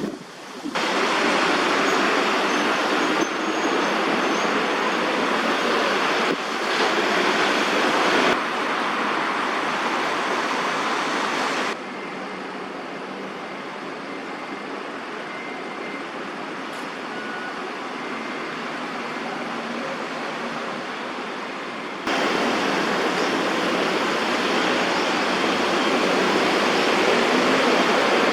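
Steady rushing wind noise, loud and even, whose level jumps abruptly up or down several times at cuts between clips.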